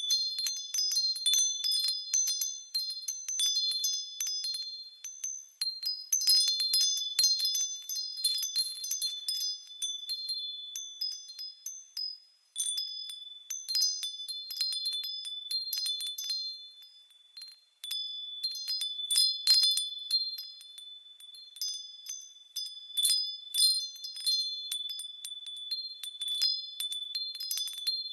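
High-pitched wind chimes ringing, with many irregular overlapping strikes on a few sustained notes. The ringing nearly dies away briefly about 12 and 18 seconds in, then picks up again.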